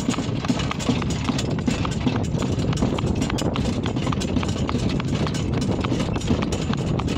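Horse's shod hooves clip-clopping quickly on asphalt as it pulls a cart, over a steady low rumble of the cart rolling along.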